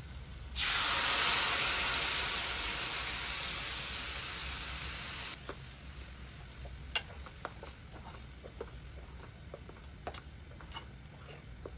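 Hot oil tempering of mustard seeds, ajwain and curry leaves in a kadhai sizzling loudly as the buttermilk and buckwheat-flour mixture is poured in: the sizzle starts suddenly about half a second in, fades gradually and cuts off after about five seconds. Then a spoon stirs the mixture, with light scattered clicks.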